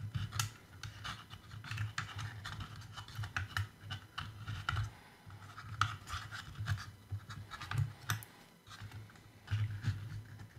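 Irregular light scraping and clicking as a screwdriver tip and fingers push wires aside inside a Hubsan Zino Pro drone's plastic body, with soft low handling bumps.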